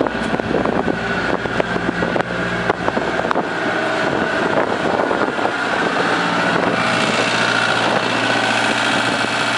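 An engine running steadily, with a scatter of clicks and knocks over the first three seconds.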